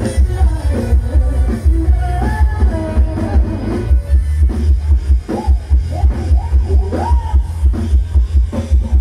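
Loud live band music from a Thai rot hae sound-truck stage: a heavy, steady bass beat, with a woman's voice singing a melody over it in the first half and rising pitched glides later on.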